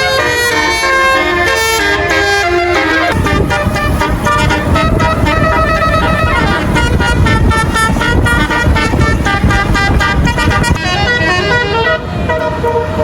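A tourist bus's basuri telolet horn, a multi-tone musical air horn, playing a tune in stepped notes that fall in pitch. From about three seconds in, a bus engine rumbles loudly underneath while the horn keeps sounding held and rapidly repeated notes, with rising glides near the end.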